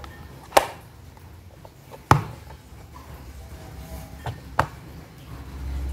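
Small plastic snap-lid box being handled and set down: four sharp plastic clicks and knocks, the loudest about two seconds in, over low handling rustle.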